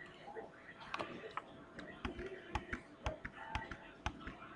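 Faint desk-side clicks and soft knocks at irregular spacing, a dozen or so over a quiet hiss, the kind of noise made by handling a computer mouse and desk near the microphone.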